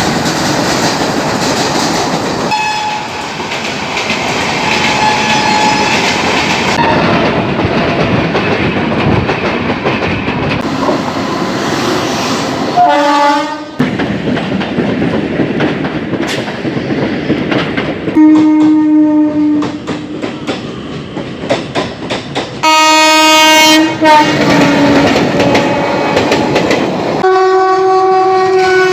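Indian Railways trains running along the track with steady rushing wheel noise and clatter, broken by several locomotive horn blasts. The longest and loudest blasts come in the second half, and the last one slides slightly down in pitch.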